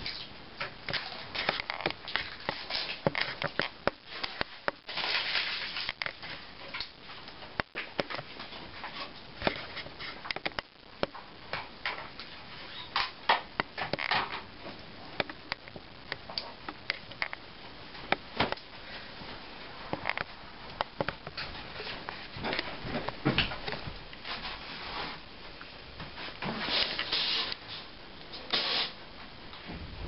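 Handling of a small metal Knojis Bug mini buckle on a cord: irregular clicks and knocks as it is clipped and unclipped, with rustling and a couple of longer brushing noises about five seconds in and near the end.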